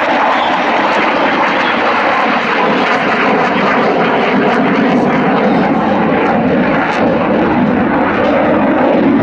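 MiG-35 fighter's twin RD-33MK turbofan engines heard as a steady, loud rush of jet noise as the aircraft manoeuvres overhead.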